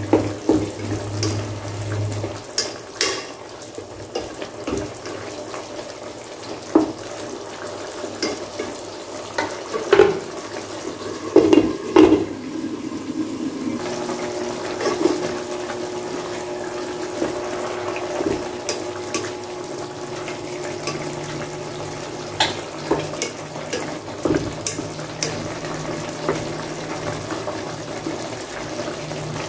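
Chicken and tomato stew bubbling at a simmer in a pot as its liquid cooks down, with a few knocks of a wooden spatula against the pot, the loudest about ten to twelve seconds in.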